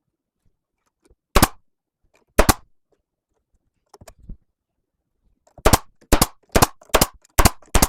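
Pneumatic air staple gun firing staples into wooden trim: two sharp shots a second apart, then a run of six shots at about two a second near the end.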